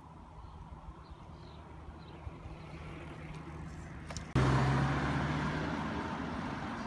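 A car passing close on a paved street: after about four seconds of quiet street sound its engine and tyre noise come in suddenly and loud, then fade steadily as it drives away.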